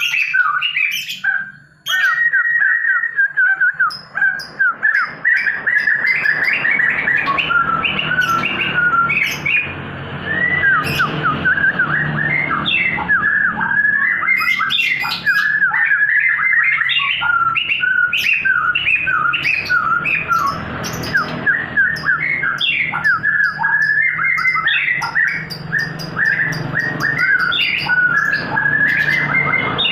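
A songbird singing a fast, continuous run of short chattering and chirping notes, played as a lure to provoke a silent caged bird into singing, with a low hum underneath.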